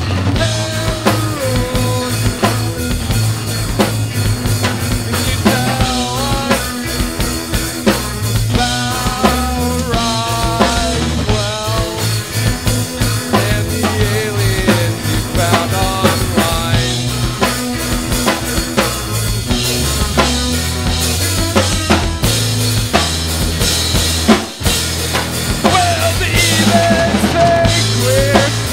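Live band playing an instrumental funk-rock passage: a drum kit keeps the beat under a steady bass line while an electric guitar plays melodic lines with bent notes. The band drops out briefly near the end, then comes back in.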